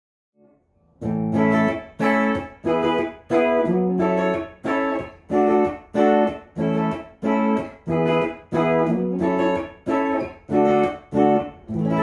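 PRS SE Custom 24 35th Anniversary electric guitar on its bridge humbucker, played clean through a Fender Blues Deluxe Reissue tube amp. After about a second of silence come short, choppy chords, each cut off after the strum, about two a second, and the last one near the end rings on.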